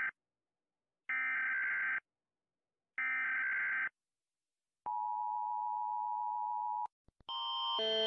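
US Emergency Alert System (EAS) alarm: the SAME header's electronic data bursts, about a second each and a second apart (the end of one, then two more). These are followed by the two-tone EAS attention signal, held steady for about two seconds and cut off. After a short gap the Canadian Alert Ready attention tone begins, a repeating pattern of alternating tones that grows louder toward the end.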